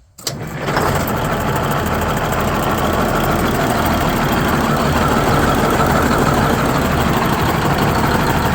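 GM New Look bus's blown two-stroke diesel engine cranking and catching just after the start, then settling within about a second into a steady, loud idle with an even low pulse.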